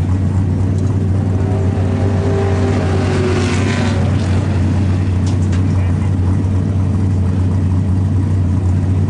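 NASCAR-style stock car's V8 engine idling with a loud, steady low rumble. About two to four seconds in, another engine swells and rises in pitch as a second car passes.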